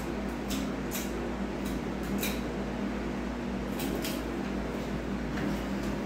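A 30-inch Westinghouse Petite hugger ceiling fan running on medium speed: a steady motor hum with air rushing off the blades, broken by a few scattered short clicks.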